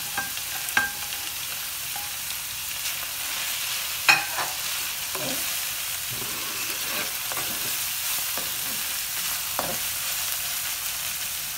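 Mixed vegetables and scrambled egg frying in a wok with a steady sizzle. A spatula scrapes and taps against the pan as they are stirred, with a sharper knock about four seconds in.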